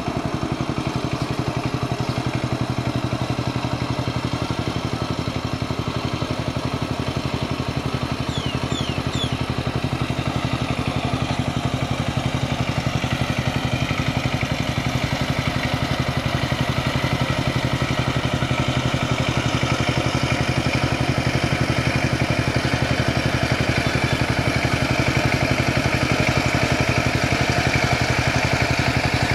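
Kamco power tiller's single-cylinder diesel engine chugging steadily under load as the walk-behind tiller churns through flooded paddy mud, growing a little louder near the end as it comes closer.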